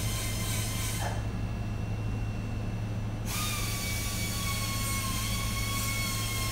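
Auto-shop workshop noise: a steady low machine hum, and the high hissing whine of an air tool. The whine runs for about a second, stops, then starts again about three seconds in and holds, its pitch sinking slightly.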